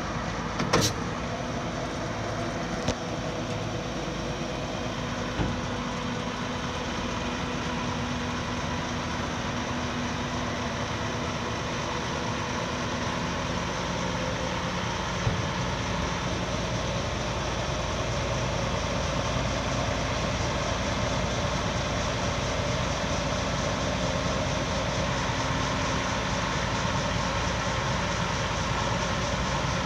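Diesel engine of a 1995 International 4900 tandem-axle dump truck running steadily while the raised dump bed is lowered on its hydraulic hoist. A sharp click comes about a second in.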